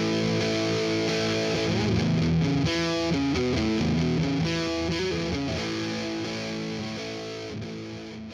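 Background rock music led by a distorted electric guitar, fading out toward the end.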